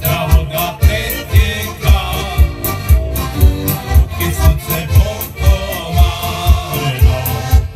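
Heligónky, Slovak diatonic button accordions, playing a lively folk tune through loudspeakers. The bass-and-chord side of the bellows keeps a steady beat of about two thumps a second under the melody.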